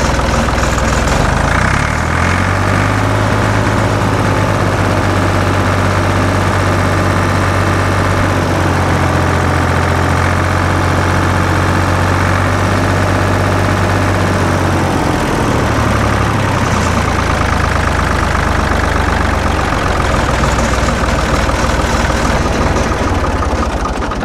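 Ford 4000 tractor engine running at raised revs. Its speed steps up about two seconds in, dips briefly around fifteen seconds and shifts again later. The engine has a pretty good stumble when revved.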